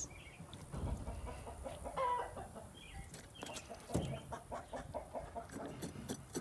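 Chickens clucking now and then, the loudest call about two seconds in, over short scraping strokes of a butter knife across a plucked chicken's skin as pin feathers are scraped off.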